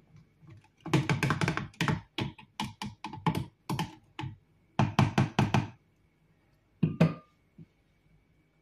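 Hand blender's head knocking and tapping against the rim and walls of a plastic blending beaker, shaking off the drink. It comes as irregular runs of sharp knocks, a quick flurry about a second in and another about halfway, with a last pair near the end.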